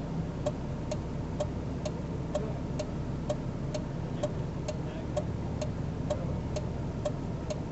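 Even ticking about twice a second, each tick with a short chime-like tone, over a steady low engine idle rumble inside a stopped car.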